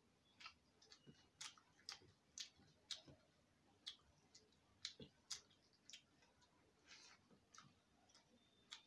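Faint sounds of eating rice and curry by hand: irregular sharp clicks, about two a second, from chewing and from fingers mixing food on a steel plate.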